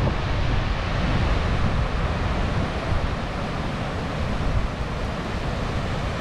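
Wind buffeting the microphone while cycling: a steady rushing noise with heavy low rumble.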